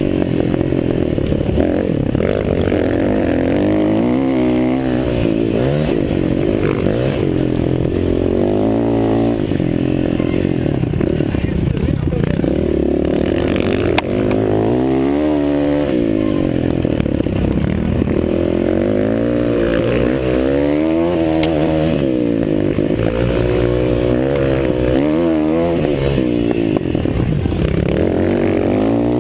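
Several motocross bikes racing, their engines revving up and dropping back again and again as they accelerate and shift, several at once.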